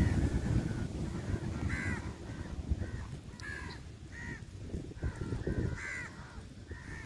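Crows cawing, short harsh caws repeated every second or so and overlapping as several birds call, over a low rumbling noise that is strongest in the first second.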